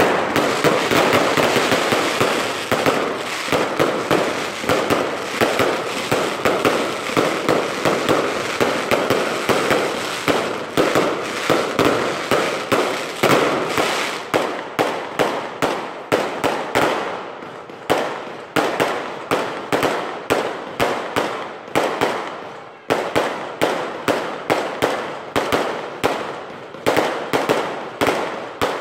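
Aerial fireworks going off. For the first half there is a dense, continuous barrage of bangs and crackling. From about seventeen seconds in it thins to separate sharp bangs, roughly two or three a second.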